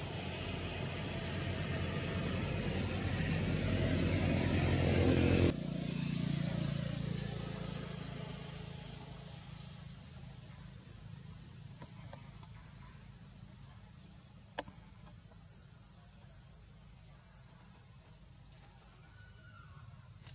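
Steady high-pitched insect chorus in forest. A low rumble grows louder over the first five seconds, cuts off suddenly, then dies away over the next few seconds, and a couple of faint clicks come later.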